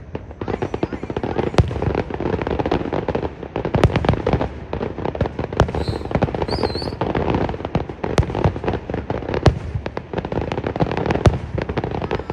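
Aerial fireworks going off in rapid succession: many sharp bangs a second over continuous crackling, with a brief wavering whistle a little past the middle.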